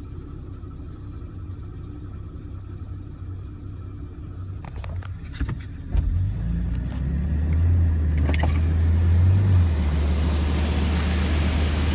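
Off-road 4x4's engine running at low speed while wading through floodwater on a road. About six seconds in there is a knock and the engine note strengthens. From about eight seconds a steady rush of water against the vehicle grows louder, with a few sharp clicks before it.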